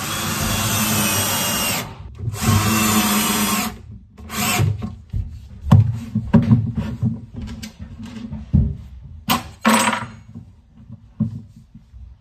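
12V cordless drill-driver running at a small metal angle bracket as it is fixed into a kitchen cabinet panel: two runs of about two seconds at the start, then two short bursts, with knocks and clatter from handling in between.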